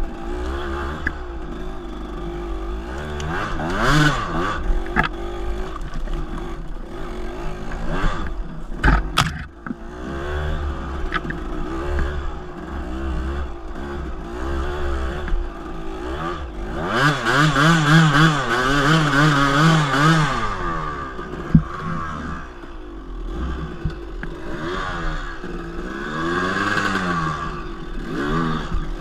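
Dirt bike engine revving up and down as the bike rides a rough trail, with clattering knocks from the bike over rocks about eight to nine seconds in. The hardest, loudest revving comes a little past the middle.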